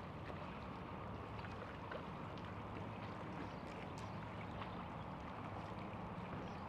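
Small waves lapping and slapping against a bass boat's hull, with small ticks, over a steady low hum from the bow-mounted electric trolling motor.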